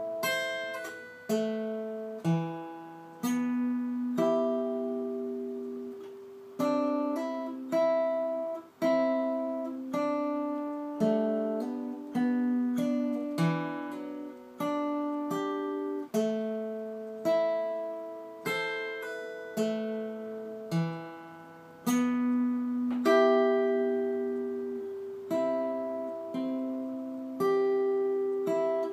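Acoustic guitar played slowly, one picked note or chord at a time, each left to ring and fade before the next.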